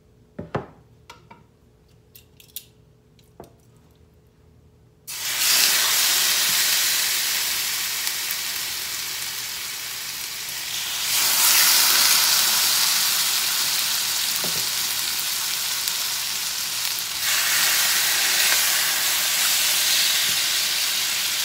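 Marinated pork chops laid one at a time into a preheated, oil-sprayed stainless electric skillet, each starting a loud sizzle. The sizzle breaks in suddenly about five seconds in and swells twice more as the next chops go down. Before it, a few light clicks.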